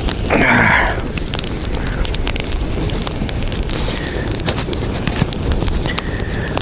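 Wind buffeting the microphone, with scattered crackles and a short loud rustling burst about half a second in.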